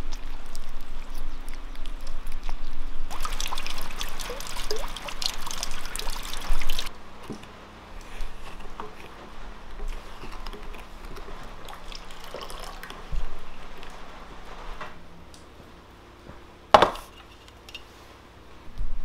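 Juice pouring and splashing into a glass bowl for a few seconds, with one sharp knock near the end.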